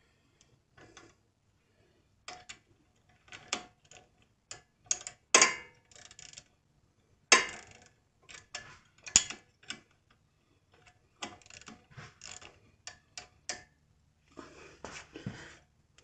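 Hand ratchet clicking in short irregular runs, with metal clinks of wrench on bolt, as the 14 mm brake caliper bolts are tightened while an open-end wrench holds the guide pin. A few louder clinks stand out about five, seven and nine seconds in.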